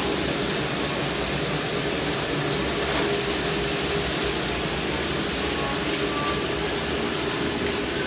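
Commercial conveyor dishwasher running, water spraying inside its wash chamber: a steady rushing hiss.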